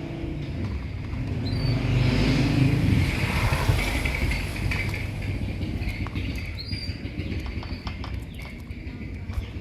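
Lovebirds giving short, high chirps over a low rumble that swells and fades about three seconds in, with a few light clicks.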